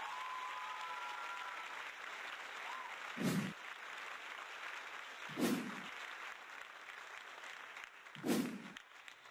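Applause with a whistle near the start, slowly dying away. Three short low thuds come about two to three seconds apart.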